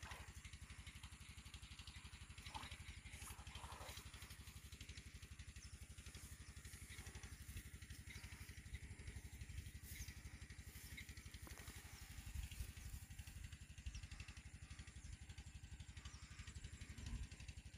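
Near silence with a faint, steady low rumble.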